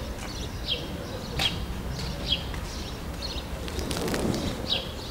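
Small bird chirping over and over in short high notes, about one to two a second, over a steady low rumble, with a single knock about a second and a half in.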